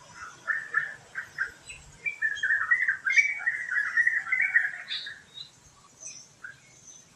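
Birds calling: a few short chirps in the first two seconds, then a longer rapid run of chattering notes from about two to five seconds in, with faint high chirps from other birds around it.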